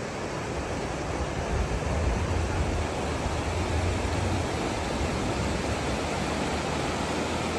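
Shallow mountain stream rushing over rocks: a steady rush of water, with a low rumble under it that is strongest in the middle seconds.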